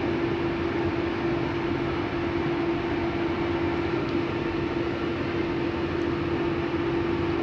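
Steady hum of a train standing at the platform, its cooling fans running: a rushing noise with one constant mid-pitched tone, unchanging throughout.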